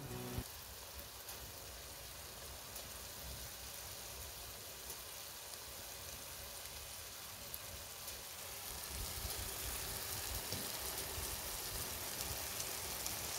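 Freshly baked anchovies and onions sizzling in a hot baking tray: a steady fine crackle that grows a little louder about eight seconds in.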